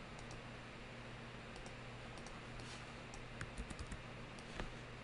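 Scattered clicks of a computer keyboard and mouse. There is a quick run of about five clicks around the middle and a sharper one near the end, over a faint steady hum and hiss.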